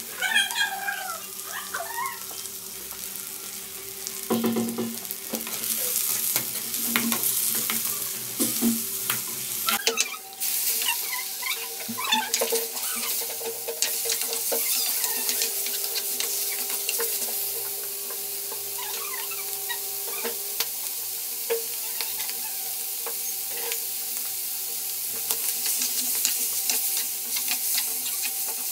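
Sliced onions, garlic and chicken liver sizzling in a hot oiled nonstick wok, with a spatula stirring and scraping the pan in short clicks and scrapes.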